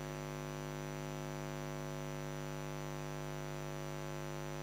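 Steady electrical mains hum with a buzzy stack of overtones and a faint hiss, unchanging throughout.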